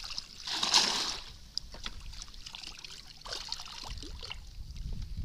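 A short splash of water about half a second in, followed by a few faint clicks and a low rumble.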